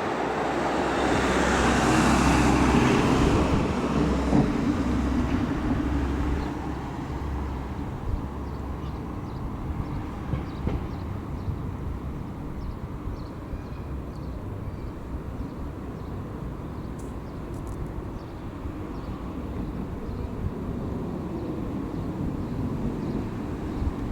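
A vehicle passing close by, swelling to its loudest about two to three seconds in and fading away by about six seconds, followed by a steady low rumble of outdoor background noise.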